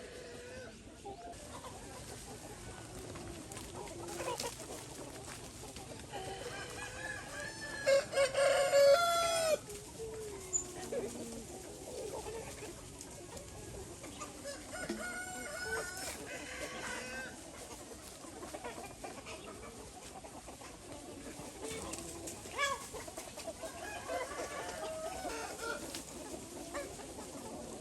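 A flock of chickens clucking steadily, with a rooster crowing loudly about eight seconds in and more crowing and calls around the middle and near the end.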